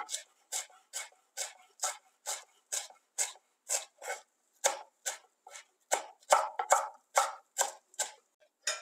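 Kitchen knife chopping fresh parsley on a wooden cutting board: a steady rhythm of short cuts, a little over two a second.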